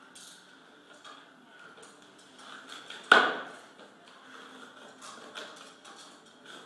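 A single sharp, loud impact about three seconds in, ringing out briefly, over faint scattered clicks and taps.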